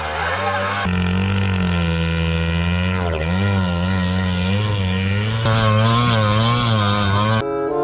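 Auto-rickshaw engines buzzing and revving up and down as the three-wheelers are driven through a shallow river. The sound comes in several short pieces joined by sudden cuts.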